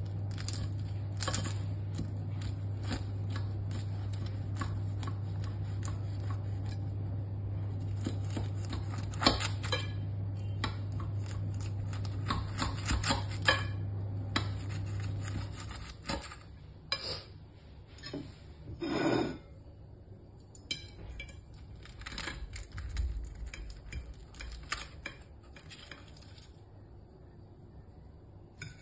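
A knife cutting through crisp baked yufka pastry, with a run of crackles and metal clinks and scrapes against the glass baking dish. A low steady hum stops about halfway through.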